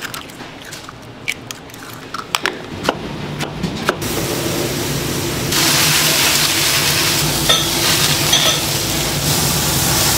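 A few sharp clinks of metal kitchenware, then, from about four seconds in, a steady sizzling hiss of sauced beef large intestine and chicken pieces grilling over an open flame, growing louder about halfway, with a low steady hum underneath.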